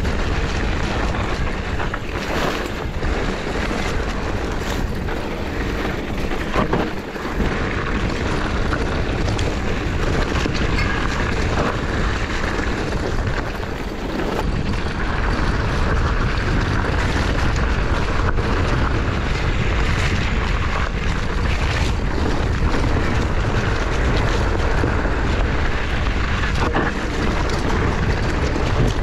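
Wind buffeting the camera microphone of a moving mountain bike, mixed with the rolling noise of tyres on a dirt singletrack and occasional clicks and knocks from the bike. The rumble grows louder about halfway through.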